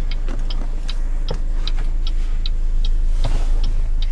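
Chevy HHR turn-signal flasher clicking fast and evenly, about four to five clicks a second: hyper flash, because the front left turn-signal bulb is burnt out. The 2.4L engine idles steadily underneath.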